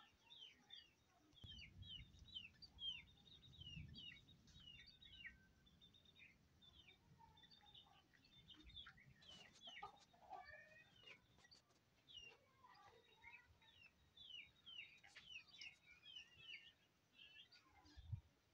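Aseel chicks peeping steadily, a stream of short, high, falling chirps several a second, with a few lower calls around the middle. A low rumble on the microphone comes in about two to five seconds in.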